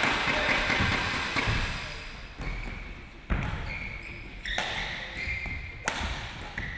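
Badminton rally in a sports hall: sharp racket strikes on the shuttlecock about every second and a half, with short squeaks of shoes on the court floor between them.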